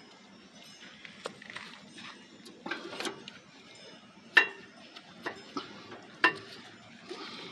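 Metal clinks as brake pads and tools are handled and fitted: about six sharp clicks with a short ring, spaced irregularly, the loudest about four seconds in.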